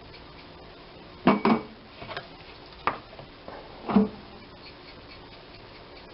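A few short knocks and clatters of kitchen things being handled and set down, four in all, the loudest a double knock about a second in and another about four seconds in.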